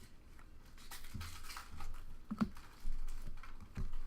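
Trading cards and pack wrappers being handled: soft rustling and light ticks, with a few dull thumps.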